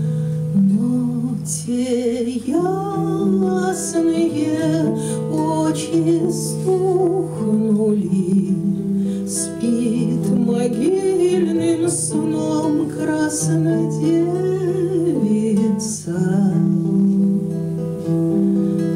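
A woman singing a Russian romance, accompanying herself on a classical guitar.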